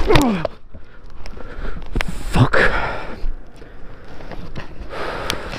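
A motorcycle crash heard from the rider's helmet camera: a falling cry as the bike goes down, then hard breathing and gasps, with a few sharp knocks and scrapes.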